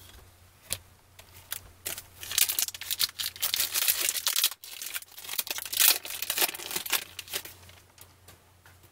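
Foil trading-card pack being torn open and crinkled by hand: a run of crackling rips and crinkles that is loudest in the middle and goes quieter near the end.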